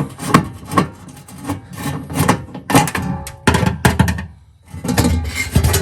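Irregular metallic clicks, knocks and scrapes as a screwdriver works the screws of an oven's rear fan cover and the sheet-metal cover is worked loose, with a brief metallic ring about three seconds in.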